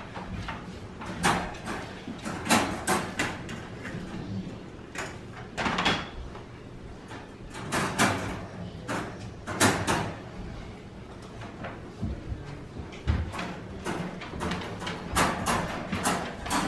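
Stainless steel dog bowls and wire dog crates clanking and rattling in irregular sharp knocks as the dogs' food is dished out.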